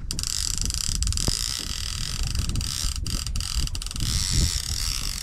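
Spinning reel's drag clicking rapidly as a hooked tope pulls line off against it, with wind on the microphone; the ticking cuts off just after the end.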